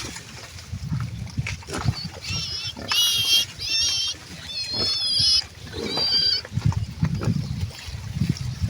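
Pigs grunting low and rough, with a run of five short, high-pitched squeals in the middle.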